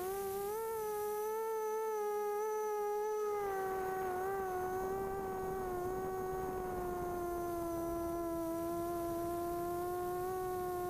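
Brushless motors and propellers of a DRQ250 mini quadcopter whining steadily in flight, heard from its onboard camera. The pitch shifts a little with the throttle.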